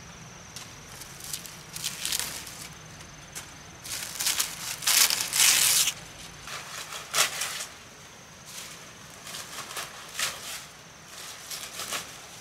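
Palm-leaf roof thatch being hacked with a machete and pulled loose: a run of short crackling, swishing crunches of dry fronds, the longest and loudest about five seconds in.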